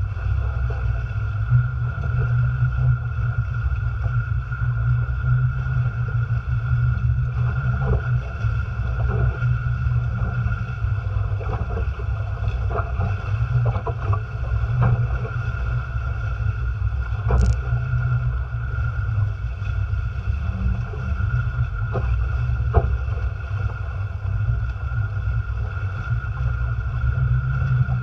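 Wind buffeting the microphone and water rushing and splashing along the hulls of a folding trimaran sailing fast through chop, with one sharp knock about halfway through.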